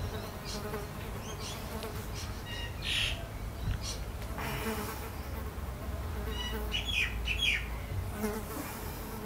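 A flying insect buzzing around the microphone in a garden, with a few short, high bird chirps and a low steady rumble underneath.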